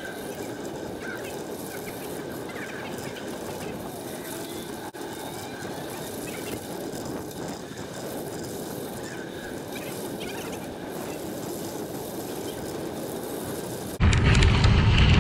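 Bicycle tyres rolling on a crushed-limestone trail, a steady gravel crunch, with faint bird chirps over it. Near the end, loud wind buffeting on the microphone comes in suddenly.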